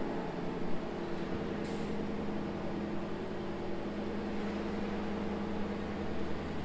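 Steady low mechanical hum with several held low tones and a faint hiss.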